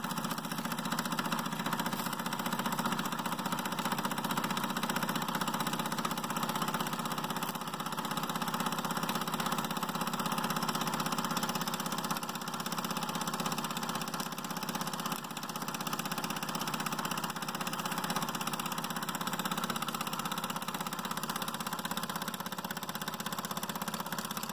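Mamod toy live-steam traction engine running steadily, its single oscillating cylinder driving a model workshop's line shaft and grinding wheel by a belt.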